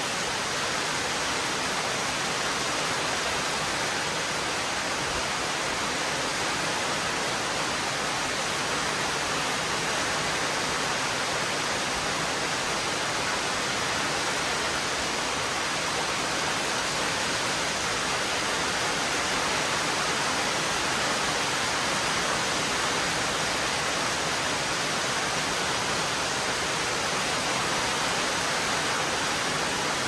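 Heavy rain falling steadily, an even hiss with no thunderclaps.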